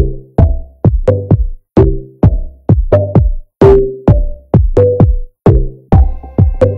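Background music: an electronic drum-machine beat with punchy hits about two to three a second under short bass and synth notes.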